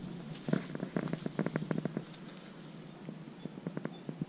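Footsteps crunching on dry leaf litter and grass, a rapid run of crackles densest between about one and two seconds in, over a low steady hum.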